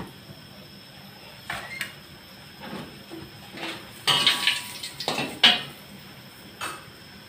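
Metal spatula scraping and knocking against a steel wok as fried tempe is lifted out: a string of separate clinks and scrapes, one ringing briefly about four seconds in, the loudest about five and a half seconds in.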